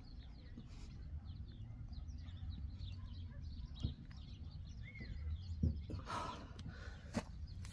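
Many small birds chirping in quick high twitters over a low steady rumble. A few short knocks come through, and a louder rustling burst about six seconds in.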